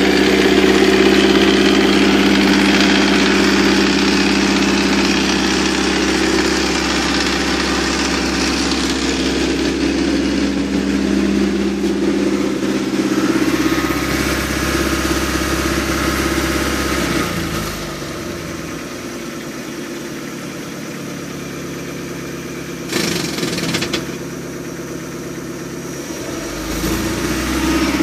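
OMC 3.0 four-cylinder sterndrive engine running steadily; about two-thirds through its speed drops and it runs more quietly, then picks back up shortly before the end. A brief rustle comes about 23 seconds in.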